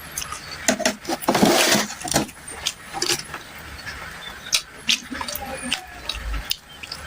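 Close-up eating sounds of spicy noodles being eaten: a string of sharp wet mouth clicks and smacks while chewing, with a longer slurp about a second and a half in.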